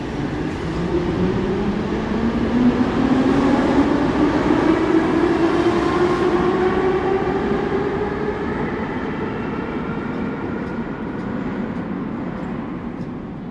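Metro train pulling out of the station: its traction motors give a whine that rises steadily in pitch as it accelerates, over the rumble of the wheels, then fades away as the train goes into the tunnel.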